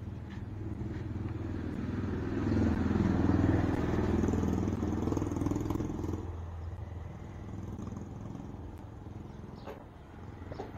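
Motor scooter engine idling steadily, while another vehicle's engine swells up loud as it passes close by, from about two to six seconds in.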